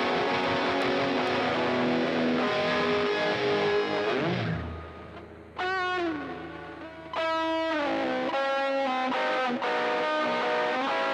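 Electric guitar played through effects: strummed chords, which fade out about four and a half seconds in with a low note sliding down. Single held lead notes follow, with their pitch bent up and down.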